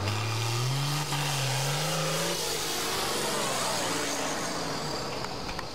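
John Deere farm tractor's diesel engine at full throttle under pulling load, rising in pitch over the first two seconds, then sweeping past close by.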